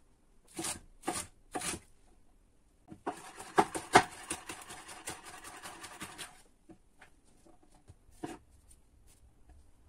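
Kitchen knife cutting vegetables on a wooden cutting board. There are three separate cuts in the first couple of seconds, then fast chopping through a small hot green pepper from about three to six seconds in, and a single cut near the end.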